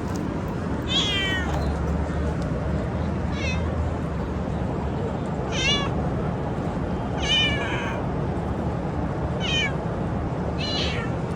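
A street cat meowing six times in short, high-pitched calls over a steady low hum. The meows are put down to a possible sore throat.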